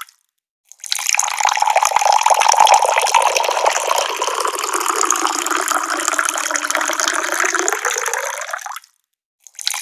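Tap water pouring in a steady rushing stream. It starts after a moment of dead silence and breaks off into silence near the end.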